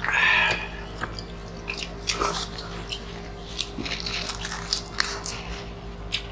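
Close-miked eating: several people chewing and smacking on rice and grilled chicken, with scattered short clicks and smacks. A louder sound comes right at the start, and a faint steady hum lies underneath.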